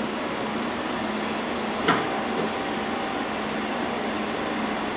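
Tschudin cylindrical grinder running, a steady mechanical hum from its motors and pumps. A single knock about two seconds in.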